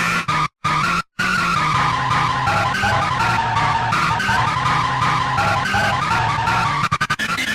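Mock emergency alert alarm: a harsh, screeching electronic tone whose pitch wavers and slides downward, cutting out briefly twice near the start and stuttering rapidly shortly before the end.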